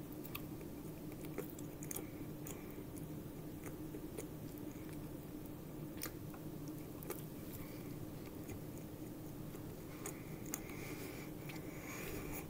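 A person chewing and biting a beef burger close to the microphone, with scattered smacking mouth clicks over a steady low hum.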